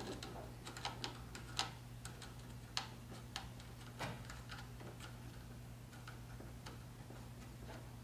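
Light clicks and small knocks of cables and plastic connectors being handled and pushed into place, scattered and mostly in the first half, over a steady low hum.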